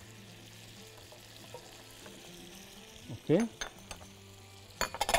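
Veal roast searing in hot oil and butter, the fat sizzling steadily and softly, with a few sharp clicks near the end.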